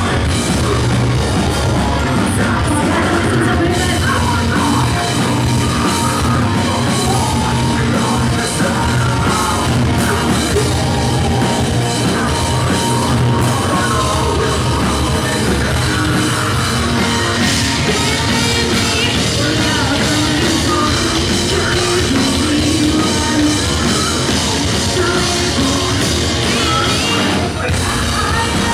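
Live melodic post-hardcore band playing a song: bass guitar, electric guitar and drum kit, with screamed vocals.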